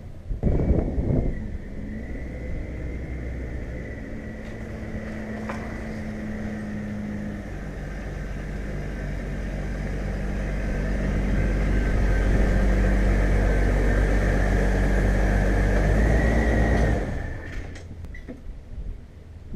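A Subaru Outback's engine running with a steady rumble and a thin high whine over it, growing louder about halfway through, then cutting off suddenly near the end.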